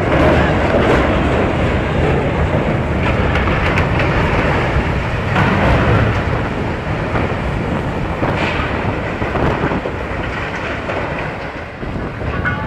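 A large steel cargo ship's hull grinding aground under way: a loud, continuous rumble and scraping.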